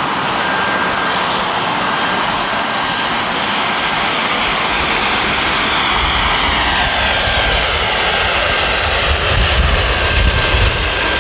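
Kerosene-fuelled micro gas turbine jet engine running with a loud, steady hissing whine. About halfway through, its whine starts to fall in pitch as the engine slows.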